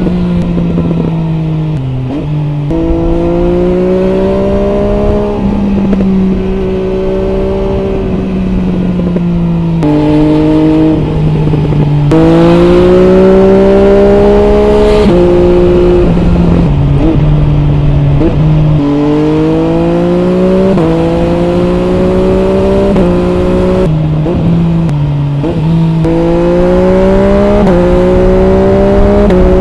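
MV Agusta Brutale 800 RR's three-cylinder engine, breathing through an MV Agusta Corse exhaust with the dB killer fitted, accelerating hard through the gears. Each pull rises in pitch and drops at the upshift, about nine times over.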